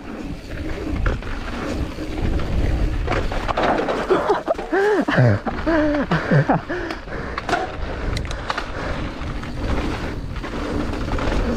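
Deviate Highlander trail mountain bike riding fast down a dusty dirt trail: steady tyre and rolling noise with rattles and knocks over the bumps. Around the middle come a few short wavering pitched sounds that rise and fall.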